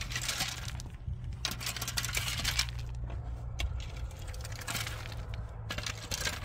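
Metal rake scraping and dragging through dry, stony soil in repeated strokes, small stones rattling against the tines, over a low steady hum.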